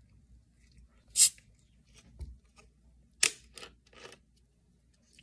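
Cap of a plastic bottle of carbonated soda being twisted open: a short, loud burst of hiss about a second in, another about three seconds in, then two fainter ones as the pressure escapes.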